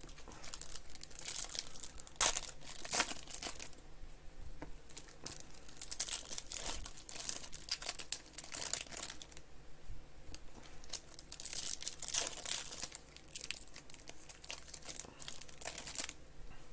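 Foil wrappers of Panini Select card packs crinkling and tearing as they are ripped open by hand, in many short, irregular crackles.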